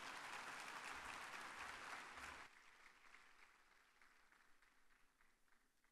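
A large audience applauding. The applause cuts off abruptly about two and a half seconds in, leaving only faint, fading clapping.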